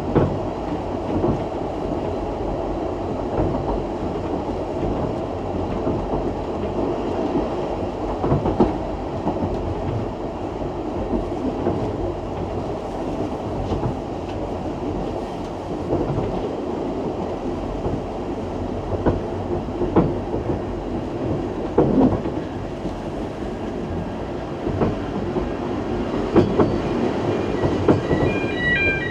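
Narrow-gauge steam railway train running along the line: a steady rumble of carriage wheels on the rails, with irregular knocks and clacks over the rail joints. Near the end, music begins.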